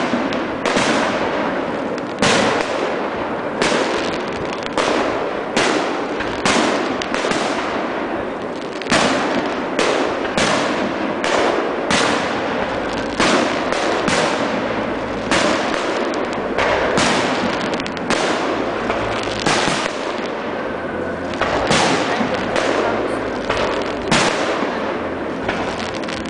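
Aerial fireworks display: shells bursting overhead one after another, a sharp bang roughly every second, with a constant din of reports and echoes filling the gaps.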